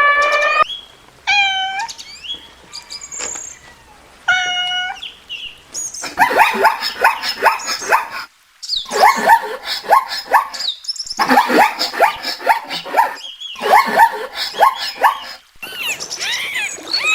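Domestic cats meowing: a few single drawn-out meows, then a busy stretch of many short overlapping meows and mews, broken by abrupt cuts between clips.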